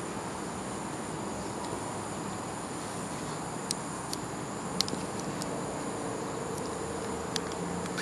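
Steady high-pitched drone of insects, with a few sharp clicks around the middle.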